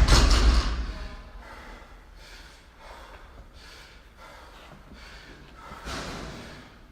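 A loaded barbell dropped on the floor after the last rep of a set, its low thud dying away over the first second. Faint, heavy breathing follows.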